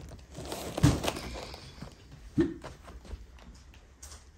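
Handling noise around a large cardboard furniture box: rustling and light knocks, with one sharp thump about a second in.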